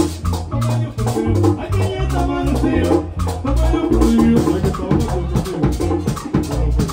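A live Latin dance band playing: a güira scrapes a quick, even rhythm over bass and drums.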